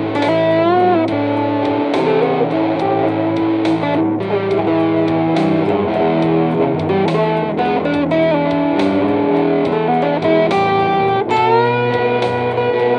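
Telecaster-style electric guitar played through a small combo amp: a blues lead line of single notes over ringing low notes, with vibrato-bent notes about a second in and a rising string bend near the end.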